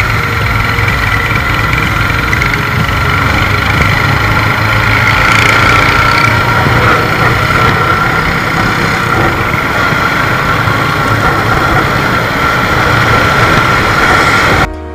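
Motorcycle riding noise: a steady rush of wind over the rider's microphone with the engine and surrounding traffic rumbling underneath. It cuts off suddenly just before the end.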